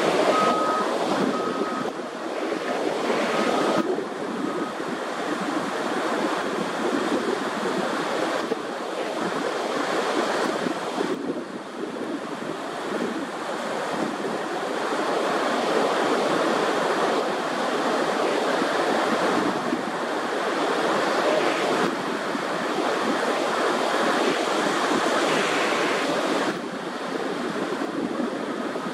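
Steady rushing noise, with a short series of high beeps in the first few seconds; its level shifts abruptly a few times.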